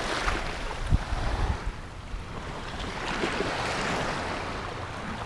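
Small waves washing in over the sand in shallow water, with wind rumbling on the microphone.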